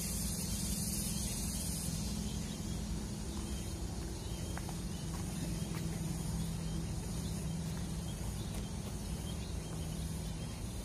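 Steady outdoor ambience: a high insect hum that fades about two seconds in, over a low steady drone.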